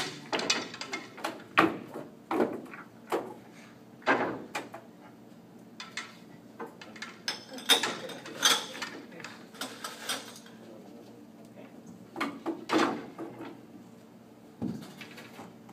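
Pool balls clacking against each other as they are gathered and packed into a rack for nine-ball: sharp, irregular knocks, several in the first few seconds, a cluster about eight seconds in and another a little after twelve seconds.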